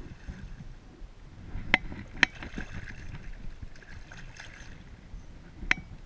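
Hands splashing and sloshing in lake water beside a drifting jet ski, with its engine not running. There are three sharp knocks, two close together a little under two seconds in and one near the end.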